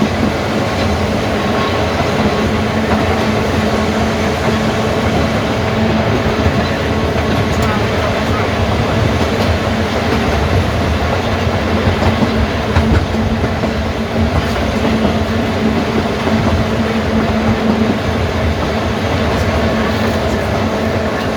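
Vintage electric tramcar of the Manx Electric Railway running along the track: a steady rumble with a constant hum, and a few clicks from the rails.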